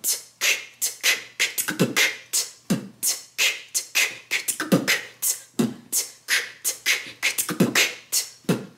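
A woman beatboxing a fast drum pattern: kick drum (B), hi-hat (T) and outward K snare sounds in a steady groove, several sharp strokes a second with a deeper kick about once a second.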